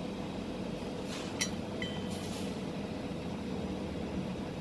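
Steady low mechanical hum of running workshop equipment, with a sharp click about a second and a half in and a brief high beep just after.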